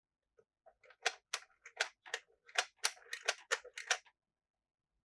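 Small hard plastic toy pieces clicking and tapping as they are handled, about ten sharp clicks at an uneven pace over three seconds.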